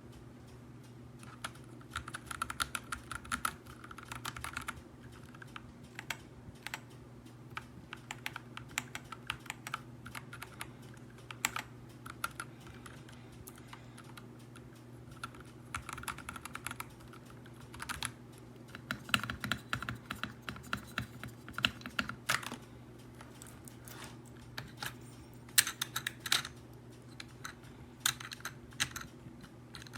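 Typing on an AULA F75 Pro mechanical keyboard with pre-lubed Reaper switches and PBT keycaps: runs of quick key clacks with short pauses between them. A low steady hum runs underneath.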